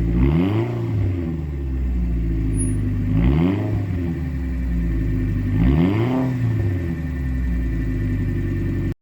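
Honda NSX Type R's V6 engine idling, blipped three times about three seconds apart: each rev rises quickly and falls back to idle.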